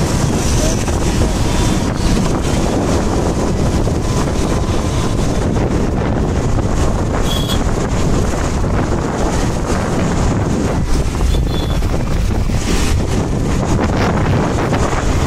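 Wind buffeting the microphone of a phone carried on a moving two-wheeler: a loud, steady rumble and hiss.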